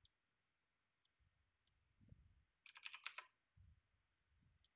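Near silence with faint computer mouse and keyboard clicks: two or three isolated clicks, then a quick run of keystrokes about three seconds in.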